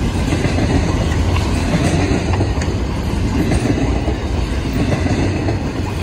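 Freight train cars loaded with waste containers rolling past at speed: a steady low rumble of steel wheels on rail with occasional faint clicks.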